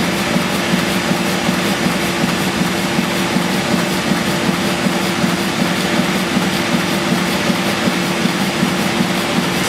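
1954 Belliss & Morcom high-speed enclosed compound steam engine driving its generator, running steadily with a fast, even beat and a constant hum.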